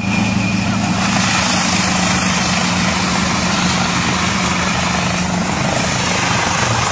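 Tractor-driven chaff cutter running while it chops fed green grass stalks and blows the chaff out of its spout: a steady engine and machine hum with an even rushing noise over it.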